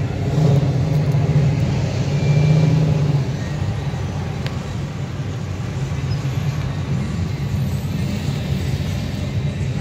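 A line of cars and pickup trucks passing slowly in cruising traffic, with a steady low engine sound that is loudest in the first three seconds.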